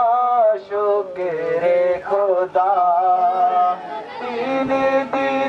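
A man's voice singing a Muharram devotional chant, with notes that bend and then hold long and steady.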